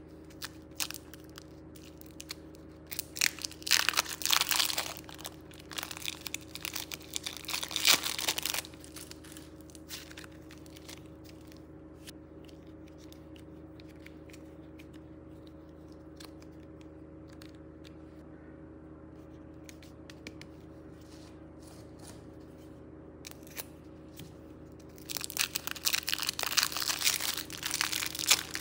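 Thin plastic piping bag crinkling as it is squeezed and peeled off soft play clay, in two spells of crackly rustling a few seconds in and again near the end, with faint clicks of clay being handled in between. A steady low hum sits underneath.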